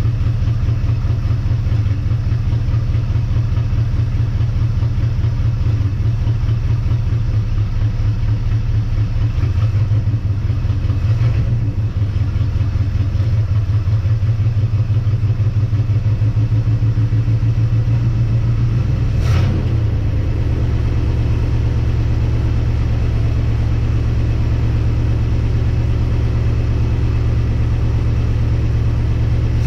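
1958 Dodge Coronet Lancer's V8 engine running at idle with an even exhaust pulse. About two-thirds of the way through there is a brief sharp click, and the engine's note changes and settles lower.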